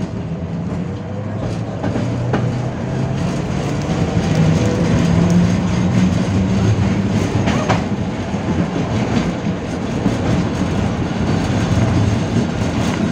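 71-605 (KTM-5) tram running along the line and picking up speed. A motor whine rises in pitch around the start, and the steady rumble of wheels on rails carries a few sharp clicks over the track.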